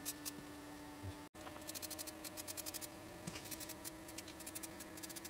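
Aerosol spray can of black paint hissing in many quick short bursts as it is sprayed onto the metal of a wheel arch, over a faint steady hum.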